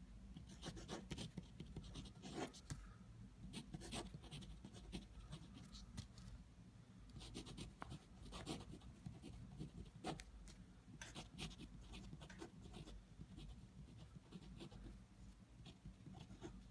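Pen scratching on paper in short, irregular strokes while writing by hand, faint, over a low steady hum.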